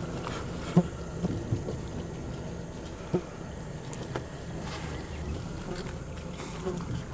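Small boat's motor running steadily, with a few short knocks.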